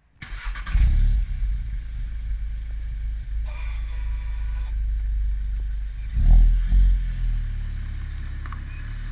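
Volkswagen Golf 7.5 GTI's stock 2.0 TSI turbocharged four-cylinder starting up through the factory exhaust, flaring briefly, then settling into a steady idle. About six seconds in, the throttle is blipped twice in quick succession.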